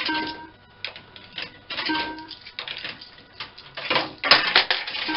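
Super Bar-X fruit machine taking in a £10 note and registering credit: short electronic beeps at the start and again about two seconds in, over a run of mechanical clicking that grows into a denser clatter near the end.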